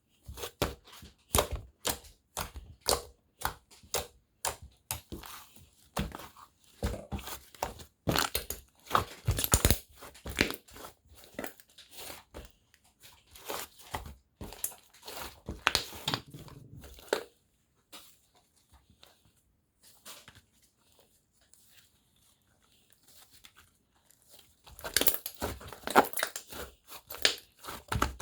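Handmade slime being squished, stretched and pressed by hand, giving runs of short sticky clicks and pops. The sound thins out to a few faint pops past the middle, then comes back densely near the end.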